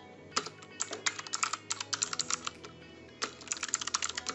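Typing on a computer keyboard: rapid keystrokes in several quick runs, with a short pause a little before three seconds in.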